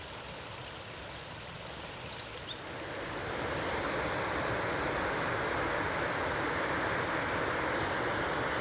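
Steady rush of flowing river water, growing louder about three seconds in and then holding steady. A few short, high bird chirps come around two seconds in.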